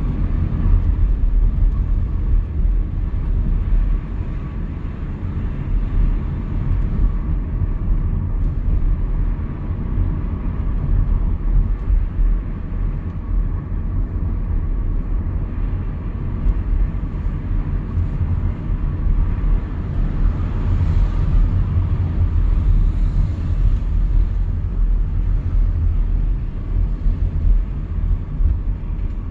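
A car driving at low speed along a town street: a steady low rumble of engine and tyre noise.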